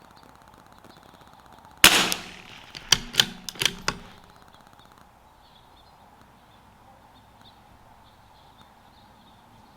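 A single .22 LR rifle shot from a CZ 457 AT-ONE bolt-action rifle about two seconds in, followed about a second later by four or five sharp metallic clicks as the bolt is worked to eject the spent case and chamber the next round.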